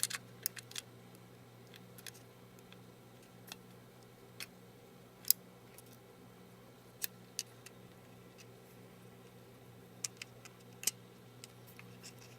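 Scattered small clicks and ticks, irregularly spaced, of a phone's logic board and parts being handled and fitted into the iPhone 3GS case, the loudest about five seconds in. A faint steady hum runs underneath.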